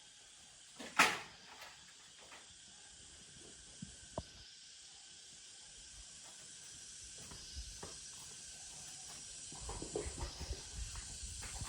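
A steady hiss that slowly grows louder, with a sharp short burst of noise about a second in and scattered knocks and clicks, thicker near the end.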